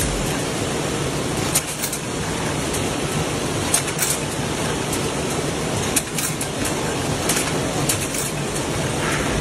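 Matchbox-filling machine running: a steady mechanical clatter with irregular sharp clicks as its metal pushers work matchsticks into the boxes.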